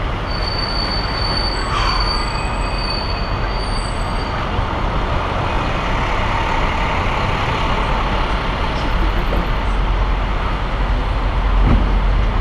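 City traffic noise heard while riding through it, with heavy wind rumble on the microphone from the rider's movement. A thin high squeal sounds for the first few seconds and stops about four seconds in.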